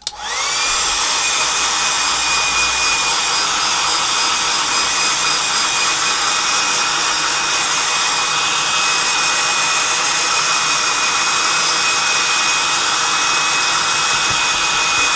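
Handheld hairdryer blowing steadily, a rushing airflow with a high motor whine. It spins up right at the start and winds down as it is switched off at the end.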